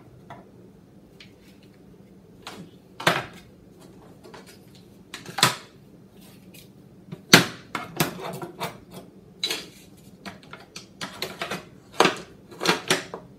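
Plastic kitchen utensils (spatulas and ladles) clattering and knocking as they are handled and set down into a wooden drawer. The clacks are irregular and scattered, with the sharpest about halfway through and again near the end.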